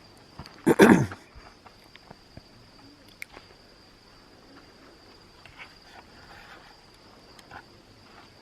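Crickets chirping in a steady high trill, with scattered footstep-like clicks and one loud, short noise about a second in.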